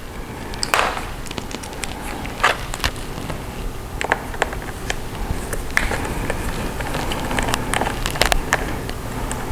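Scattered sharp clicks and light taps, about a dozen at irregular intervals, as a screwdriver and hands work at the screws of a laptop's bottom case.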